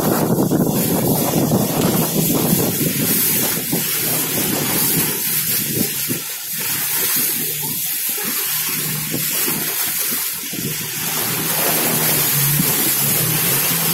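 Wind buffeting the microphone and river water rushing past a fast-moving boat running through rapids. The boat's engine hum shows faintly near the end.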